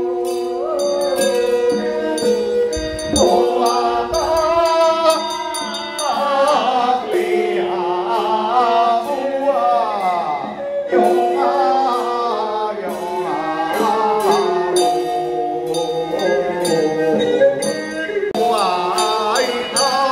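Taoist priest chanting a liturgical song through a microphone, his voice gliding and wavering over a steady sustained tone, with a small brass handbell jingling throughout.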